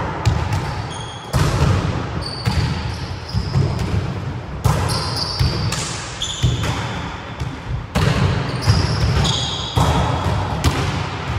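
Volleyballs being hit and bouncing on a wooden sports-hall floor: sharp smacks every second or two, each echoing in the hall. Short high squeaks of trainers on the wooden floor come between them.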